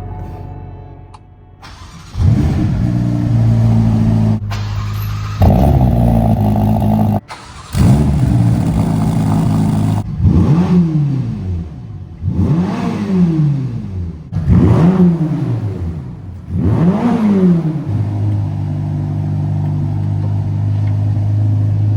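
Ferrari Roma's twin-turbo V8 starting up about two seconds in and idling, then blipped four times, each rev rising and falling in pitch, before settling back to a steady idle.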